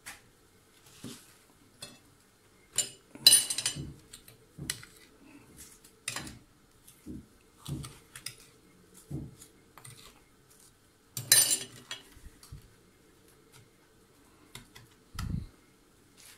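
Metal spoon clinking and scraping against a glass pie dish while scooping sugar: a string of irregular clinks and gritty scrapes, loudest about three seconds in and again around eleven seconds, with a dull thump near the end.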